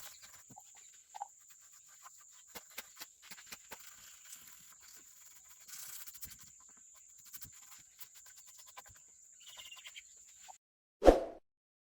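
Scattered small clicks and taps of hand work on parts, over a steady faint high whine. After a sudden drop-out, one loud metallic clang rings out near the end.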